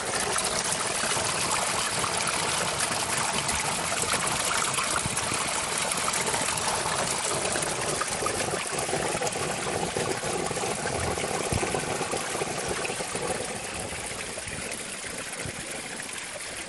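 Spring water trickling and splashing over rocks as a small stream, a steady rush that grows a little quieter about three-quarters of the way through.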